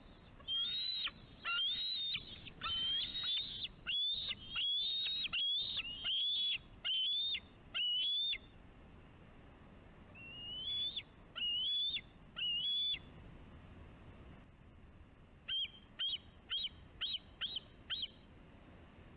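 Bald eagle calling: high, thin whistled calls that swoop up and level off. About a dozen come in quick succession, then three more after a short pause, then a quick run of six shorter ones near the end, over a faint steady hiss.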